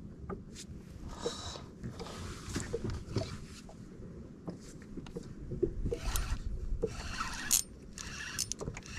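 Spinning reel on a short fishing rod being worked as a fish is brought in, giving a raspy mechanical whir in several spells of a second or so.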